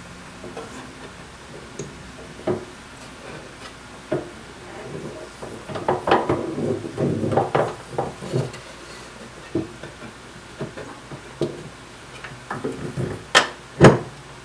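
Clicks and knocks of a drill chuck being fitted back onto a mini drill press spindle. Near the end come two loud sharp knocks about half a second apart as the feed handle presses the chuck down onto a wooden board to seat it.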